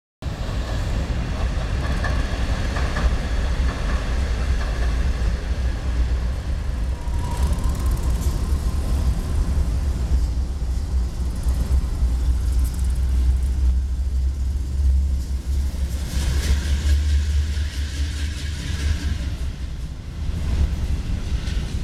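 Union Pacific GE C44-9W diesel-electric locomotives passing at the head of a freight train, their engines giving a steady low rumble. The lead unit makes a clicking noise as it runs, which the uploader takes for an unhealthy sound that is not normal.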